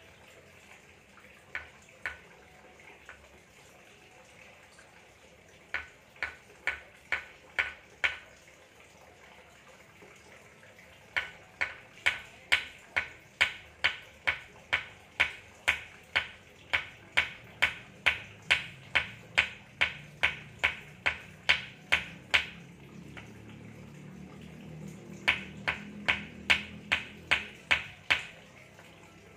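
Runs of sharp, ringing ticks, about two a second, some runs short and one long, with a faint low hum under the later ticks.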